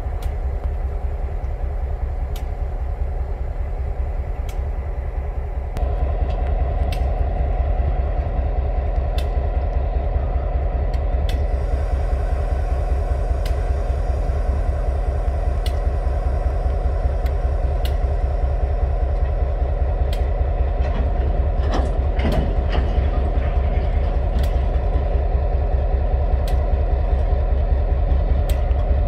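Coal train with TasRail diesel locomotives 2051 and 2054 passing slowly: a steady, loud diesel engine and rolling rumble, with sharp clacks about once a second, typical of wheels crossing rail joints. The sound steps up about six seconds in.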